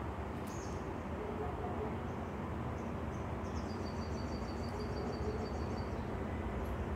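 Steady low background rumble, like distant traffic or room noise, with a faint high chirping trill lasting a couple of seconds in the middle and a single light click about half a second in.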